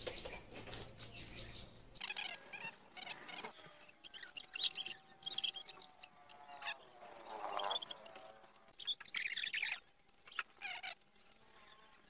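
A plastic 3x3 Rubik's cube being turned quickly by hand: clusters of light clicking and clacking as the layers snap round, with short pauses between runs of turns.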